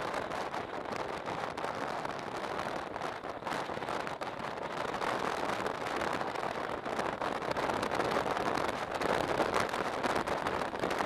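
Wind rushing over the microphone of a camera mounted on a moving motorcycle, a steady roar that grows a little louder in the second half.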